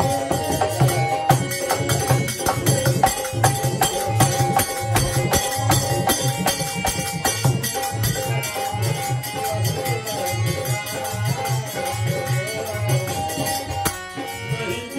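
Devotional folk music: a harmonium holds sustained tones over a steady drum beat, with jingling brass hand percussion on the beat. The music dips briefly near the end.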